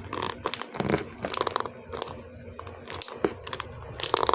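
Packaging crinkling and rustling in the hands, with irregular small clicks and taps, as a box is worked open.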